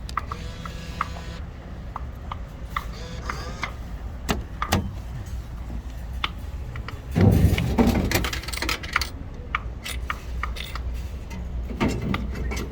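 Vendo BMax drink vending machine working through a purchase: scattered clicks and knocks, with a louder rumbling clunk about seven seconds in as the bottle is delivered, over a steady low hum.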